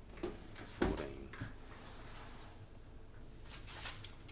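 Faint rubbing and rustling handling noise, with a few soft scuffs and a light click near the end.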